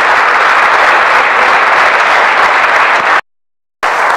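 Audience applauding steadily. About three seconds in, the sound cuts out completely for around half a second, then the applause comes back a little quieter.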